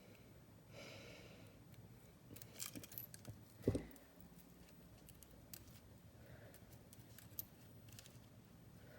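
Faint clicks and clinks of beads, metal jewelry findings and pliers being handled while making bead dangles, with one louder knock a little before four seconds in.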